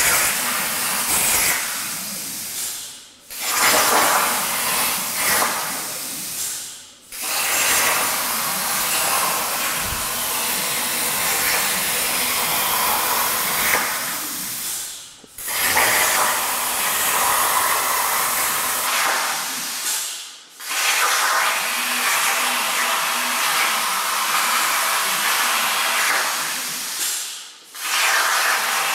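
Hypertherm Powermax85 plasma torch cutting 1/8-inch mild steel on a CNC table, a loud steady hiss. It stops for a moment about five times and starts again.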